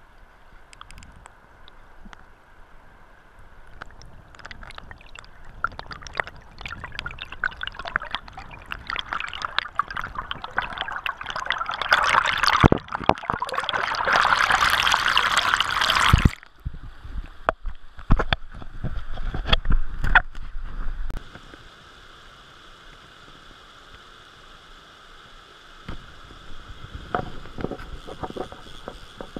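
Muffled gurgling and rushing water heard through a submerged action-camera housing, with knocks and scrapes as the housing brushes rocks. The rush builds to its loudest a few seconds past the middle and cuts off suddenly, leaving a few sharp clicks and a softer, steadier water hiss.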